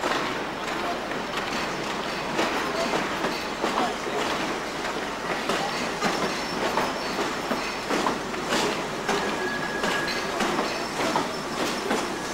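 Network SouthEast electric multiple unit rolling past, its wheels clicking and clattering over rail joints, with a brief squeal about nine seconds in.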